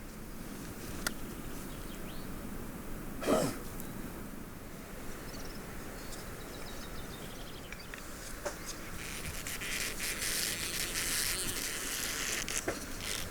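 Outdoor wood-fire cooking sounds: scattered crackles and clicks, one short louder sound about three seconds in, and a hissing sizzle that swells in the last few seconds.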